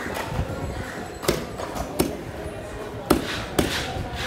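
A large knife chopping through a spangled emperor onto a thick wooden block: about four sharp chops, the first about a second in and the last two close together near the end.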